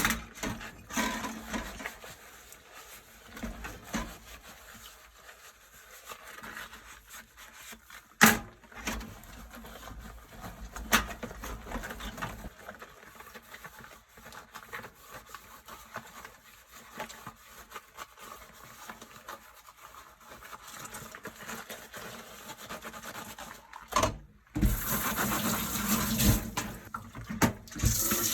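Dishes being washed by hand in rubber gloves at a kitchen sink: scattered clinks and knocks of dishes, the sharpest about eight seconds in, over soft rubbing and handling. Near the end the tap is turned on and water runs steadily.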